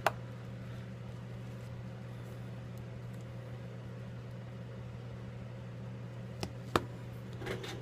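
Steady low hum, with a sharp click right at the start as the iPhone 5s screen assembly is pressed shut into its frame, and two more small clicks near the end as the phone is handled.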